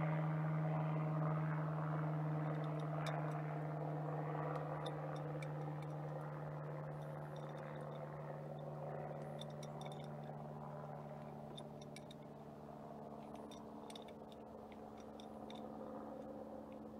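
A steady low mechanical hum slowly fades away. Over it come scattered light clicks and scrapes from hands working a rubber fuel hose and its fittings loose in a truck's engine bay.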